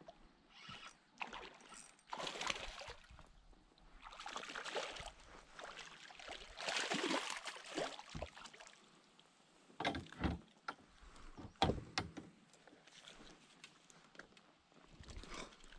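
Water splashing and sloshing beside a kayak as a hooked smallmouth bass thrashes at the surface, in uneven bursts, followed by a few sharp knocks and clicks of the fish and gear being handled on board.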